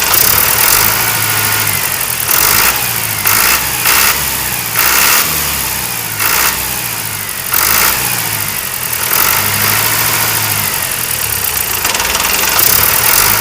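A small engine running, with a low steady hum and repeated louder noisy surges every second or so.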